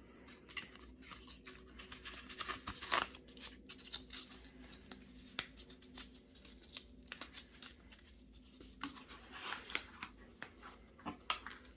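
Hands handling unboxing packaging: an irregular run of small scrapes, rustles and clicks as items are taken out of and pressed back into the box insert.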